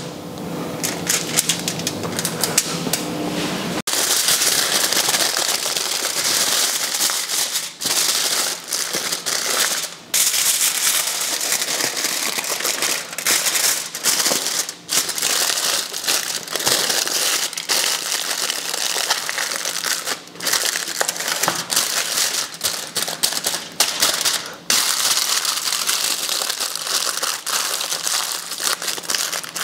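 Aluminium foil being crumpled and folded by hand, a continuous crinkling with a few short breaks.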